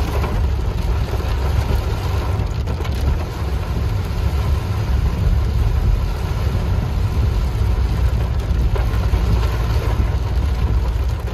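Car driving on a rain-soaked road, heard from inside the cabin: a steady low rumble of engine and road noise with an even hiss of water from the tyres and rain.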